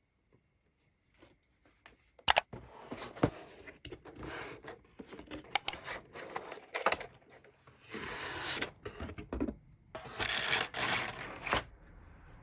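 Packaging being handled: rustling and tearing in spells of about a second, with a few sharp clicks in the first half.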